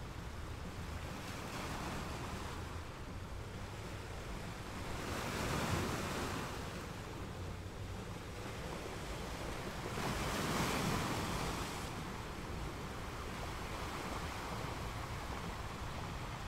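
Sea waves breaking and washing up a sandy beach, swelling louder twice, about five seconds in and again about ten seconds in, as breakers come in.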